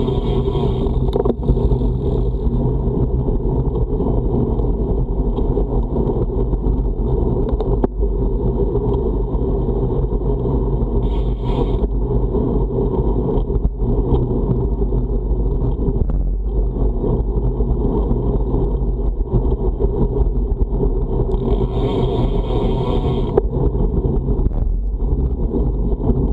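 Steady wind rush and road rumble from a road bike riding into a strong headwind, with a couple of brief hissing swells partway through.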